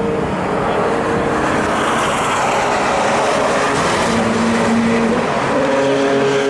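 IndyCar engines running on track, their pitch drifting up and down as the cars pass, over a steady rush of noise.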